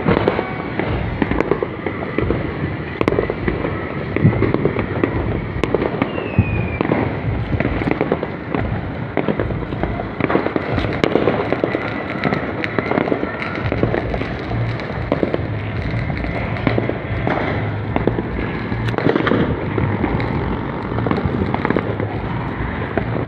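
Many distant fireworks and firecrackers going off at once, a continuous mass of overlapping pops and crackles with sharper bangs scattered through it.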